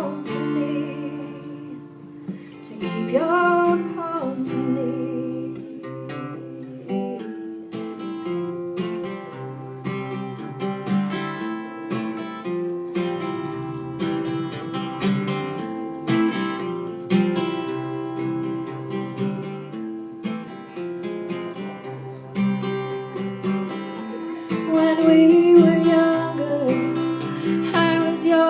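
Live acoustic song: acoustic guitar strummed and picked under a singing voice, getting louder near the end.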